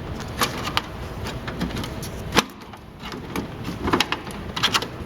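Scattered clicks and knocks of the voting machine's casing parts being handled and pulled at, with one sharp snap about two and a half seconds in.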